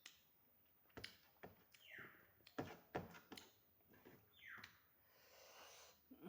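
Soft chewing and wet mouth sounds: scattered clicks and short smacks at irregular intervals.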